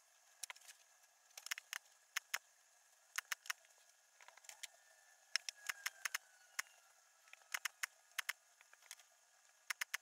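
DIY battery spot welder firing through nickel strip onto LiFePO4 32650 cells: sharp snapping clicks, often in quick pairs or short clusters, repeating about once a second.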